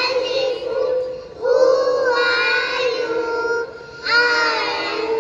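A group of young children singing together in unison, in held phrases with short breaks about a second in and again just before four seconds.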